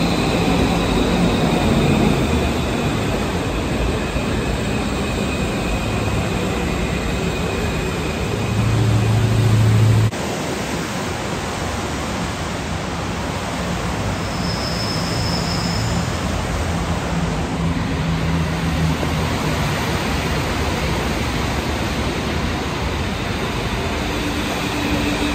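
Steady hiss of rain with a Metro de Santiago AS-02 train running slowly, its low humming tones shifting in steps. A louder low hum cuts off abruptly about ten seconds in.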